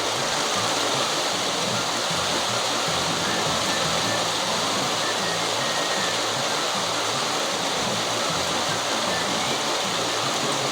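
A steady rushing hiss that holds an even level throughout, with background music playing under it.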